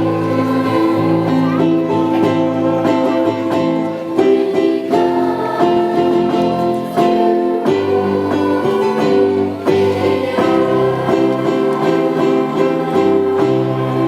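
Instrumental Christmas song music led by plucked strings, with notes plucked in a steady rhythm under held chords.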